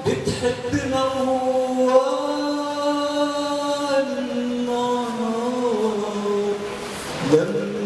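A man singing a mawwal through a microphone, drawing out long held notes that bend slowly in pitch, with a slide down and back up near the end.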